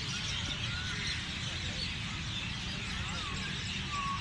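Many birds chirping at once, a dense chorus of quick high chirps with a few clearer whistled notes sliding in pitch, over a steady low background rumble.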